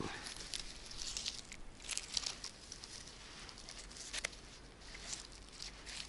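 Irregular rustling and crackling of moss and dry pine needles, with a few sharp ticks, as a small mushroom is cut and pulled out of the moss by hand.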